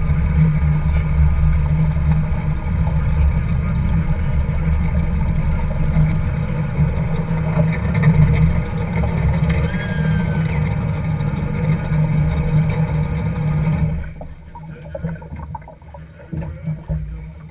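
Mercury 2.5 EFI V6 two-stroke outboard engine running at low speed, a steady low rumble with water splashing around the hull. Near the end it falls much quieter, as if throttled back or cut.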